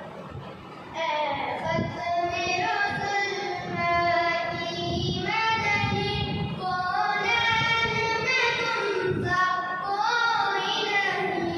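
A naat sung by a single high voice in long, drawn-out phrases whose held notes glide and bend in pitch, with short breath pauses between lines.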